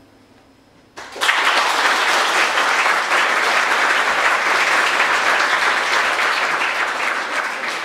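Audience applause, starting suddenly about a second in and holding steady.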